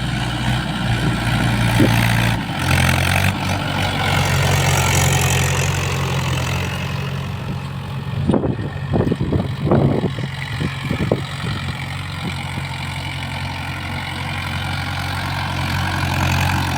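Mahindra Yuvo 475 tractor's diesel engine running steadily while ploughing, its note dropping slightly about two and a half seconds in, with a few short knocks near the middle.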